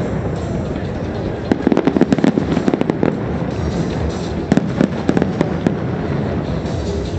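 Fireworks going off in rapid pops, in flurries about a second and a half in and again around four and a half seconds, over a steady rumble and background music.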